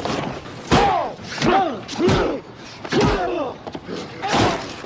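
Fight-film punch sound effects with men's grunts: about five hard punch impacts, each followed by a short strained grunt or groan.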